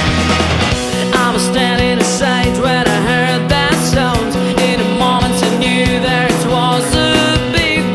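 Background rock music with a steady beat, bass line, guitar and a singing voice.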